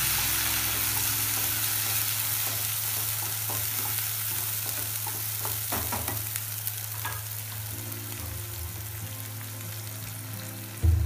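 Ground spice paste of ginger, garlic, onion, black pepper and black cardamom sizzling in hot oil in a non-stick kadai while a wooden spatula stirs it and scrapes the pan now and then. The sizzle slowly dies down, and there is a thump near the end.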